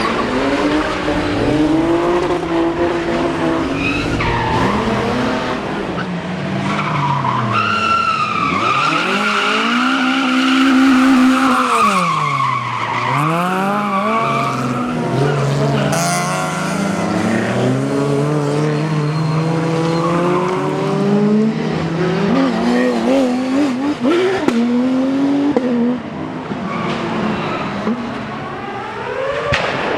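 Rally car engine revving hard, its pitch climbing and dropping again and again through gear changes and corners, with tyre skid noise.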